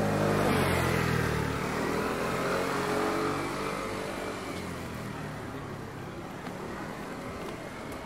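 A motor vehicle's engine passing close by on the street, loudest in the first couple of seconds with its pitch falling slightly, then fading into steady traffic hum.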